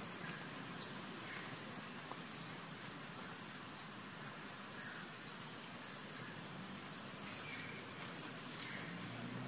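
Steady chorus of insects, crickets or cicadas, making a continuous high-pitched drone over a faint outdoor hiss.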